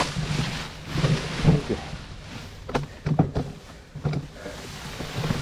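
Wind on the microphone over a steady low hum that fades in and out, with a few sharp knocks about halfway through.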